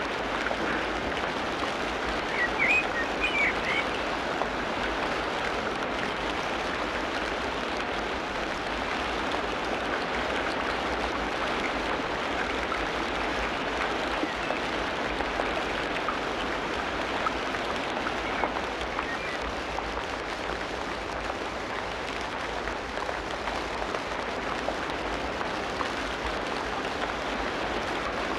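Tropical rainforest rain: a steady, even hiss of rainfall. A few brief high calls sound about three seconds in.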